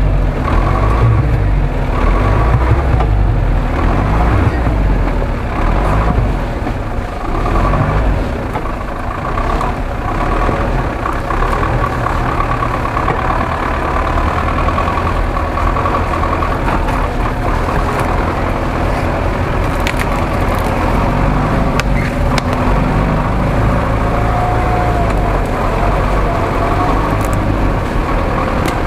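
GAZ-66 truck's engine running hard under load, revving unevenly at first, as the truck claws its way out of a deep mud rut, with a steady high whine over the engine.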